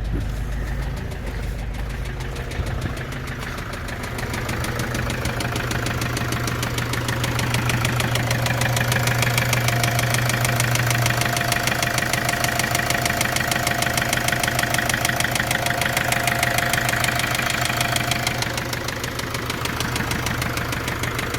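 Opel Vivaro 2.0 four-cylinder turbodiesel idling just after starting, with a fast, even knock running through the engine sound: the unexplained knock in the engine that the owner is asking about. The sound swells in the middle and eases back near the end.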